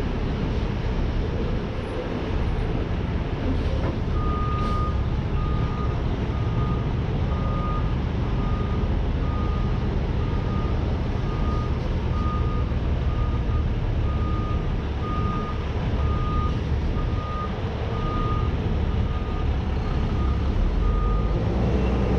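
Heavy truck engine running steadily with a low rumble. About four seconds in, a truck's reversing alarm starts beeping, a single high tone a little more than once a second, and it stops shortly before the end.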